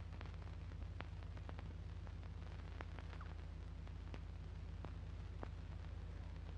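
Near-quiet soundtrack of an old film: a steady low hum and faint hiss, with a dozen or so faint scattered clicks.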